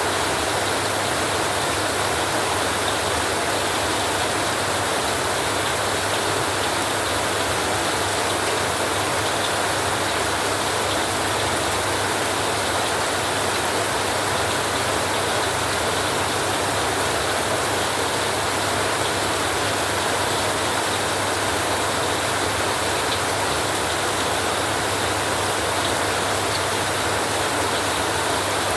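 Heavy rain falling on a metal roof: a steady, unbroken hiss that stays at one level throughout.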